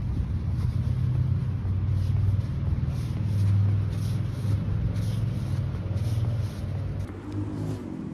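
Steady low rumble of road traffic, swelling about halfway through and easing near the end, with faint regular footsteps on sidewalk paving.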